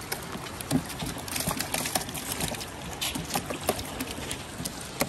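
Freshly netted trout flapping in shallow water in a plastic tub, an irregular patter of small splashes and knocks.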